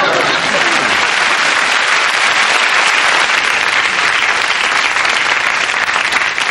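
Studio audience applauding, steady and loud.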